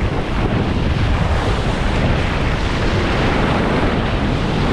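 Ocean surf washing in steadily, mixed with wind buffeting the microphone.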